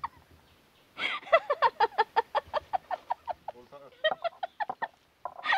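A woman laughing in quick, evenly repeated short bursts: a long run from about a second in, then a second, shorter run about four seconds in.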